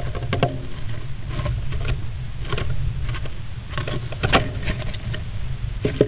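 Great spotted woodpecker shifting about inside a wooden nest box: irregular scratches and taps of its claws and feathers against the wooden walls and floor litter, the loudest a little after four seconds in, over a steady low rumble.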